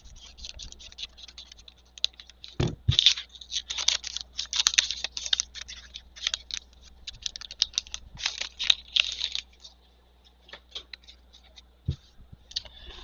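Crinkling and rustling of a trading-card pack wrapper being torn open and the cards handled, in irregular crackly bursts, with a couple of soft thuds on the table.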